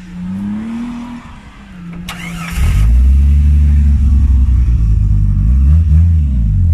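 Off-road 4x4's engine revving up and down, then about two and a half seconds in it goes to hard throttle and holds loud and steady, with a couple of short dips in revs near the end. A brief noisy burst comes just before the engine opens up.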